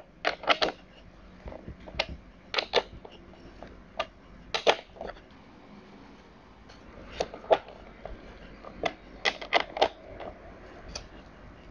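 A metal combination wrench clicking and clinking on the bar nuts of a cordless chainsaw as the nuts are tightened down. The clicks are short and sharp, some single and some in quick clusters of two or three, at irregular intervals.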